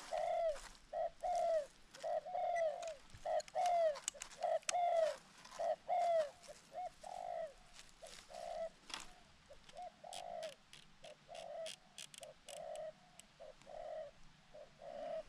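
Spotted doves (tekukur) cooing: a long run of short, arching coos, about two to three a second, spacing out a little in the second half, with a few brief crackles over them.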